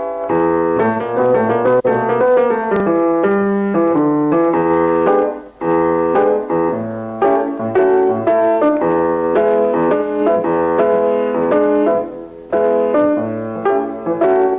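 Piano playing a continuous passage of chords and melody, notes struck in quick succession, with brief breaks about five and a half and twelve seconds in.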